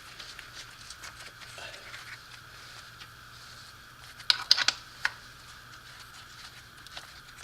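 Small metal tools and parts clicking and clinking as they are handled, with a quick cluster of sharp clicks about four seconds in and one more a moment later, over a faint steady hum.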